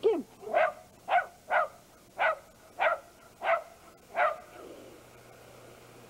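Shetland sheepdog barking in a quick run of about eight sharp barks, roughly two a second, which stop a little past four seconds in.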